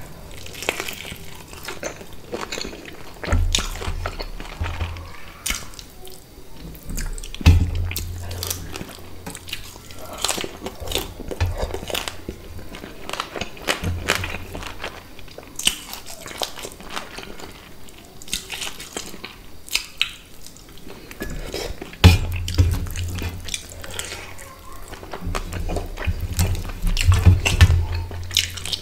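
Close-miked wet chewing and lip smacking of a person eating fish curry and rice by hand, with squishing and picking of food against a steel plate. Irregular low thumps come in a few seconds in and again near the end.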